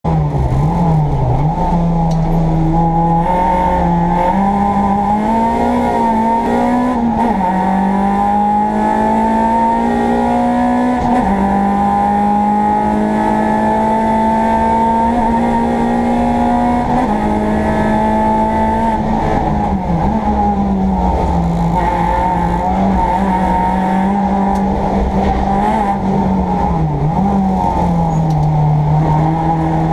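Renaultsport Clio's 2.0-litre four-cylinder engine, heard from inside the cabin, driven hard on track. It revs up through the gears with a sharp pitch drop at each upshift, and the revs fall away several times under braking for corners.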